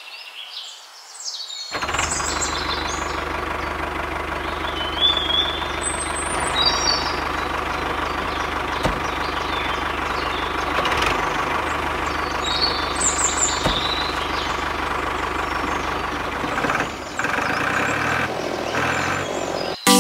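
Tractor engine running steadily, starting about two seconds in, with birds chirping several times over it. The engine sound changes near the end.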